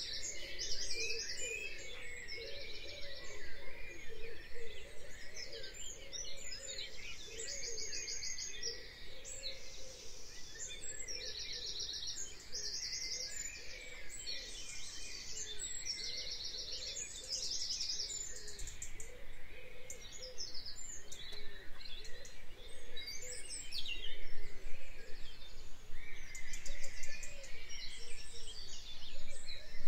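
Birds singing and calling: many short, fast trills repeating every second or two, mixed with chirps.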